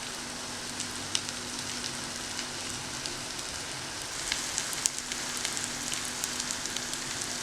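Fish frying in hot oil in a pan: a steady sizzle with scattered crackles and pops that grow more frequent about halfway through.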